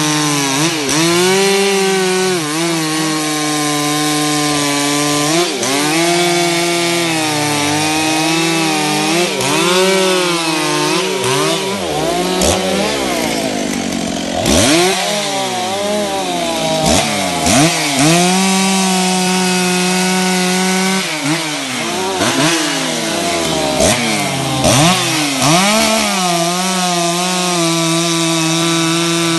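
Chainsaw cutting through a thick tree trunk at full throttle. Its pitch repeatedly drops as the chain bogs down in the wood and climbs back as the cut eases, with steadier high-revving stretches in between.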